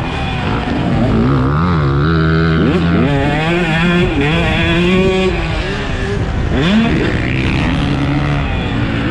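2022 Husqvarna TC 125's two-stroke single-cylinder engine revving under load as the motocross bike is ridden around the track. The pitch holds and eases off, then climbs sharply twice, about three seconds in and again near seven seconds, as the throttle opens between shifts.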